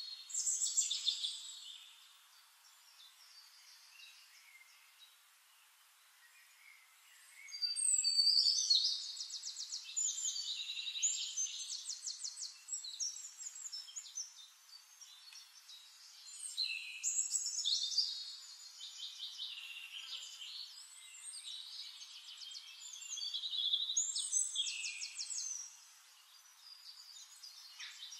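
Songbirds singing in bursts of rapid, high trills and chirps, with a quieter stretch of a few seconds after the start and again near the end.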